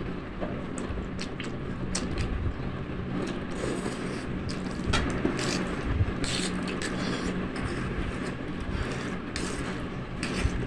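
Close-up eating sounds of spicy instant noodles being slurped and chewed, with scattered short clicks of utensils, over a steady low hum.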